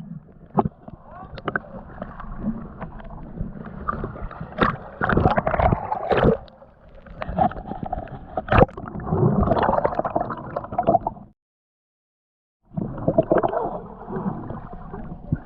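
Muffled water sloshing and gurgling as a snorkeller moves through river water, with frequent knocks and splashes. The sound cuts out completely for about a second just past the middle, then the sloshing resumes.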